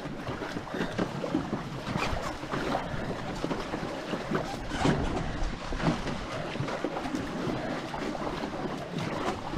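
Paddles of a two-person racing canoe (C2) dipping and pulling through the water, a splash roughly once a second, over a steady rush of water and wind.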